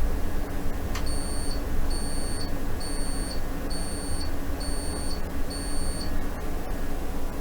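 Six short high-pitched electronic beeps, about one a second, starting about a second in, over a steady hiss and low hum.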